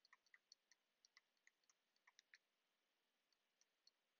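Very faint, irregular clicks of a stylus tapping and writing on a tablet screen, a quick run of them over the first two and a half seconds and a few more near the end.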